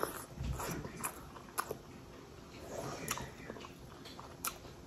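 A person chewing steamed momo dumplings, with wet mouth and lip smacks and a few sharp clicks scattered through.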